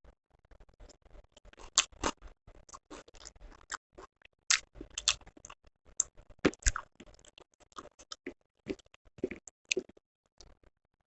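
Close-miked eating: chewing and wet mouth clicks in an irregular run of sharp ticks and short crackles, thinning out near the end.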